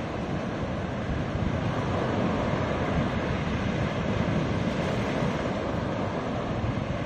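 Surf breaking and washing up a sandy beach: a steady rushing hiss of waves that swells a little a second or two in and eases near the end.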